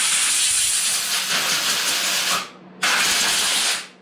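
Compressed-air blow gun blasting air over a chainsaw's air filter to clear the dust. One long hiss stops about two and a half seconds in, then a second blast lasts about a second.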